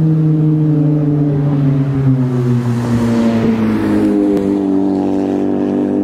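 A car driving past close by: its engine note falls for the first few seconds, then climbs again as it accelerates away. A rush of tyre and wind noise swells as it goes by, around three seconds in.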